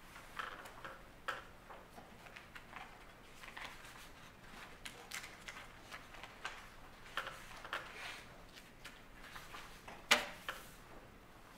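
Scattered light clicks, taps and rustles of papers being handled and people moving in a quiet courtroom, with one sharper knock about ten seconds in.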